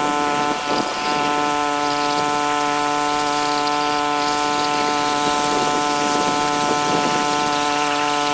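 Pressure washer running steadily at a constant pitch, spraying mold and grime off a vinyl fence, with a brief waver a little under a second in.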